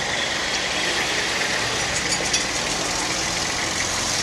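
Engine and road noise of a moving vehicle heard from inside its cabin, a steady drone.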